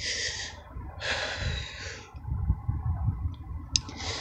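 A person sniffling and breathing hard through the nose after crying: a short noisy breath at the start, a longer one of about a second soon after, and another just beginning at the end, over a low rumble.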